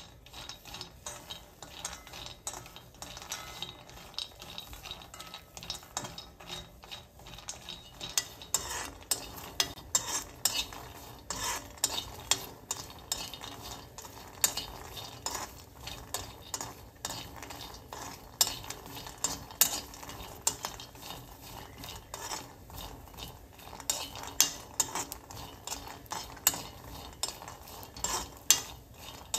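Spatula stirring skin-on peanuts roasting in a nonstick pan: the nuts rattle and scrape against the pan in quick, irregular clicks, busier in the second half.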